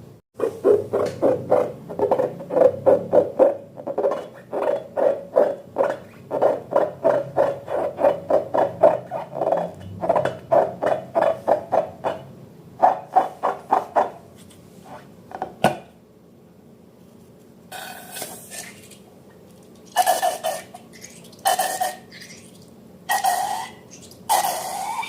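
Slime squeezed and worked by hand: a quick run of wet squelches, about four or five a second, for most of the first half, then after a pause a handful of separate, longer squelches.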